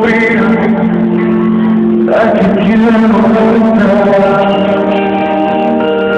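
Live music: a male voice singing over guitar and band accompaniment, with long held notes.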